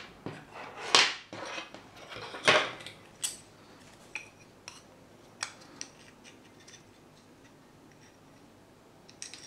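Carbon-fibre drone frame plates and arms clacking and clicking against each other as they are handled and fitted together. There are two louder clatters about one and two and a half seconds in, then lighter, scattered ticks.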